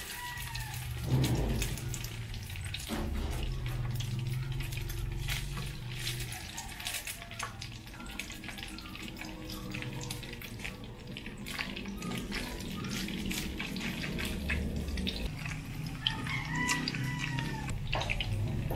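Slices of luncheon meat sizzling and crackling in hot oil in a small square frying pan, with a thump about a second in as a slice goes into the pan.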